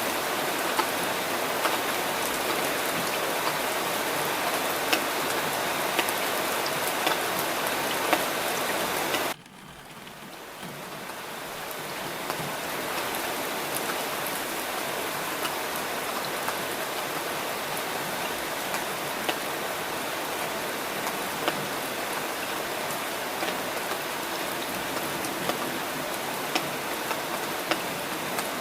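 Steady rain, with scattered sharper drop ticks. About nine seconds in, the rain sound drops out abruptly and swells back to full over about three seconds.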